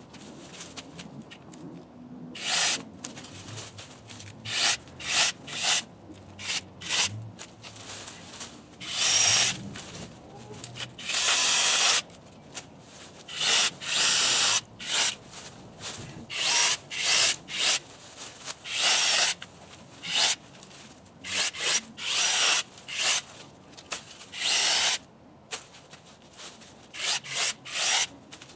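Electric mini chainsaw cutting through thin branches in a run of short, irregular bursts, each cut lasting from a fraction of a second to about a second.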